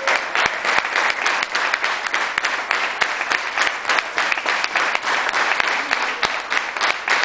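Sustained applause from a crowd: many hands clapping at once, without a steady rhythm.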